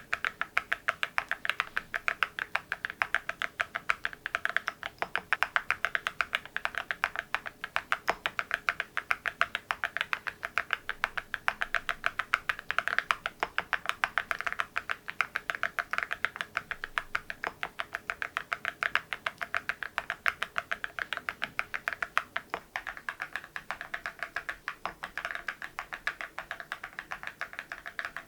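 Fast, steady typing on an MZ Y3 mechanical keyboard with ceramic keycaps: a continuous run of sharp, bright key clacks, several a second.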